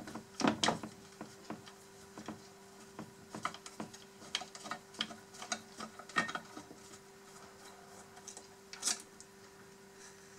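Irregular light clicks and rattles of hands and a small screwdriver working loose the cabin of a Huina K336 RC hydraulic excavator model and lifting it, with a faint steady hum underneath.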